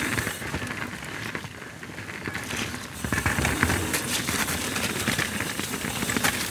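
Mountain bike rolling down a muddy, snowy trail: tyres crackling through slush and mud, with many small clicks and rattles from the bike, quieter for a moment and busier from about three seconds in.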